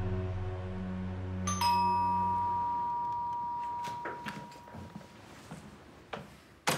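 A two-tone doorbell chime, a higher note then a lower one that rings on for a few seconds, about a second and a half in, as soundtrack music fades out. A few footsteps follow, then a sharp click of a door handle near the end.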